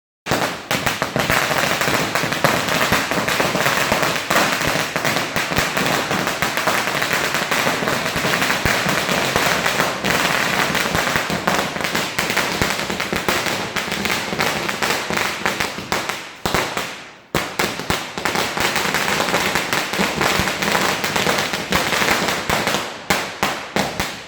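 A long string of firecrackers, a 10,000-cracker chain, going off in a dense, rapid crackle of bangs. There is a brief lull about two-thirds of the way through, then the bangs resume and grow sparser near the end.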